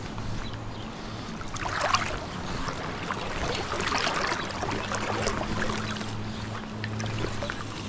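River water rippling and splashing, swelling louder through the middle, over a low steady hum.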